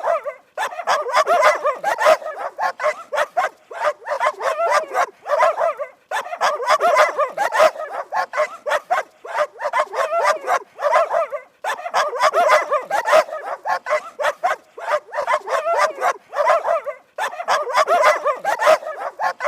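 Dog barking in rapid strings of quick barks, each run lasting several seconds and broken by a short pause about every five to six seconds.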